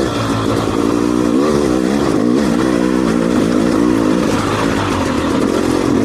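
2020 KTM dirt bike engine running, its revs rising and falling repeatedly as the throttle is worked over the rock.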